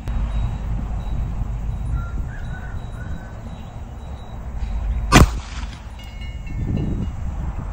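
A single shot from a Ruger SR9c 9mm pistol firing a full metal jacket round, about five seconds in. A steady low rumble runs under it.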